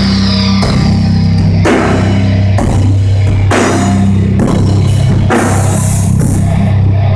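Heavy metal band playing live on stage: distorted guitar and bass holding low notes while the drum kit strikes with cymbal crashes about once a second.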